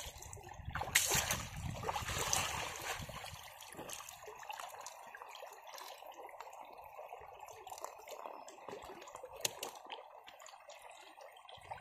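Water trickling steadily, with a low rumble in the first few seconds and a few sharp taps, one about a second in and another near the end.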